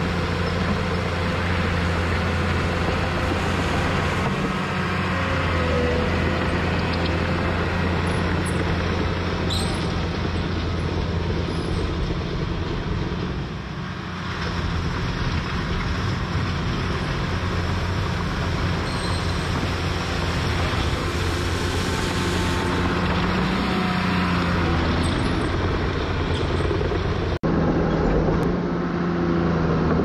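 Caterpillar D4 bulldozer's diesel engine running steadily under load as the dozer pushes dirt and gravel to grade a soft road. The engine note eases briefly about halfway through.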